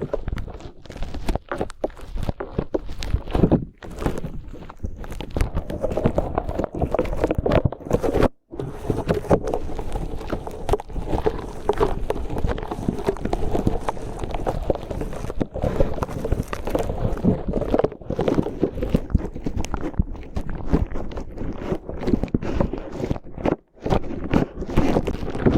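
Slime being squished and worked against the microphone to imitate ear cleaning: a dense, steady run of sticky crackles and squelches, with a short break about a third of the way in and another near the end.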